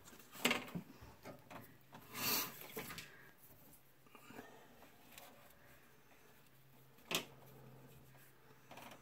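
Faint rubbing and scattered light clicks of hands working at a washing machine's cold water inlet, wrapping Teflon tape onto the threads; a brief rubbing rasp about two seconds in and a sharper click about seven seconds in.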